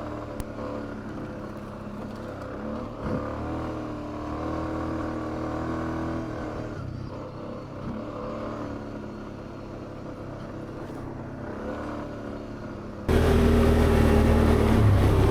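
ATV engine running at low trail speed, its pitch rising and falling a little with the throttle. About thirteen seconds in the sound turns abruptly much louder.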